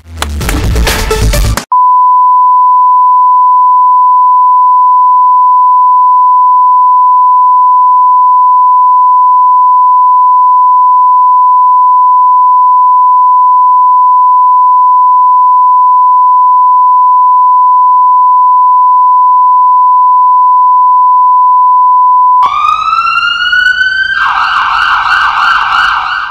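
Music cuts off about two seconds in, and a loud, unbroken high-pitched electronic tone holds at one pitch for about twenty seconds. Near the end an ambulance siren starts, rising in pitch and then wailing.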